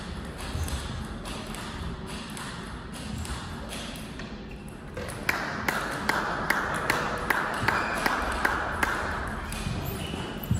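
Table tennis ball clicking off table and bat at an even pace, about two to three sharp clicks a second, starting about five seconds in, over a steady hiss of hall noise.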